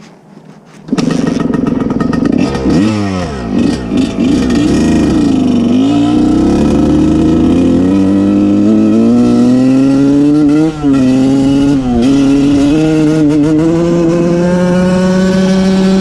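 KTM SX125 two-stroke dirtbike engine firing up about a second in, revved in a few quick blips, then pulling away with its pitch climbing and two brief dips near the end as it shifts. The carburettor is out of adjustment, which the rider says can be heard.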